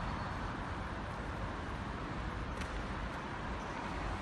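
Steady urban background rumble and hiss of distant traffic, with one faint short tick about two and a half seconds in.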